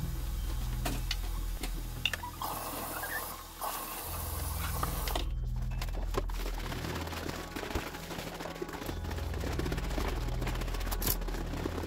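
Kitchen tap running water into a plastic jug of bowel-prep powder, cutting off about five seconds in; then scattered clicks and knocks as the plastic jug and its cap are handled.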